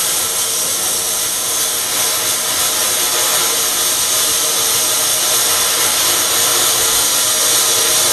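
Steady hissing sound effect of a laser beam burning in lettering, even and unbroken, with faint steady tones under it.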